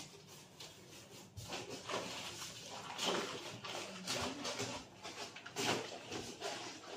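Plastic bags crinkling and rustling as plastic-wrapped food packets are pushed into a cardboard box, in irregular bursts, with the box's cardboard flaps rubbing and bumping.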